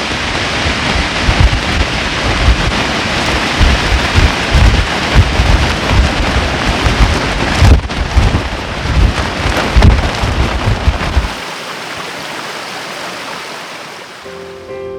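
Heavy rain hissing while strong wind gusts buffet the microphone. About eleven seconds in the buffeting stops and the steady rain hiss carries on more faintly.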